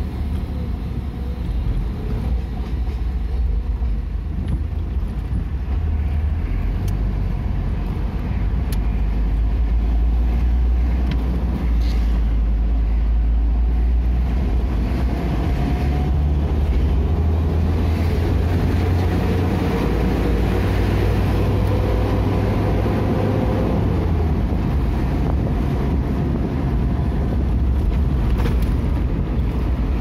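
Steady low rumble of a moving vehicle's engine and road noise, heard from inside the cab. A faint whine rises slowly in pitch about halfway through as the vehicle picks up speed.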